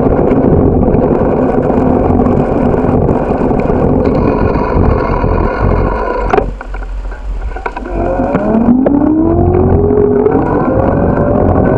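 Wind on the microphone and steady riding noise from a bike on a street. The noise drops briefly about six seconds in as the bike slows at a stop sign, then a motor whine rises steadily in pitch as it pulls away again.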